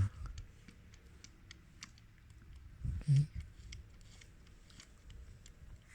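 Light clicks and taps of small plastic and metal parts of a CD player mechanism being handled and fitted, with two short dull knocks, one at the start and one about three seconds in.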